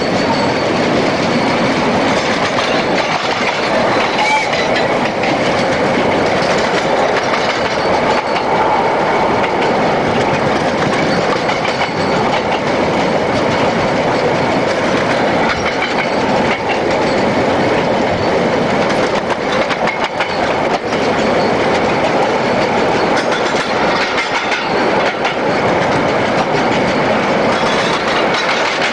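Narrow-gauge steam locomotive running at speed, a steady loud rumble and rattle of its running gear and wheels on the rails.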